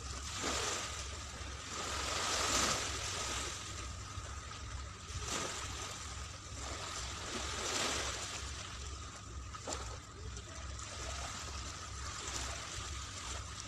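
Small waves washing onto a sandy beach, the hiss swelling and fading every two to three seconds, with wind rumbling on the microphone.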